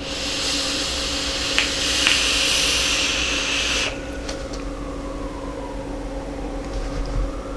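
A long draw on a dual-coil rebuildable dripping atomizer on a box mod set to 30 watts: a steady airy hiss that lasts about four seconds, with two faint pops about two seconds in. It is followed by a softer, breathy exhale of vapour.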